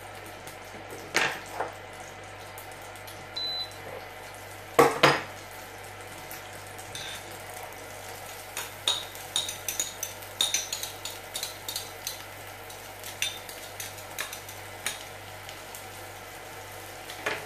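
Kitchen utensils and a glass bowl knocking on a worktop, two sharp knocks in the first five seconds. Diced onions and ham are then tipped into a frying pan and stirred, with a run of clicks and scrapes of the utensil against the pan.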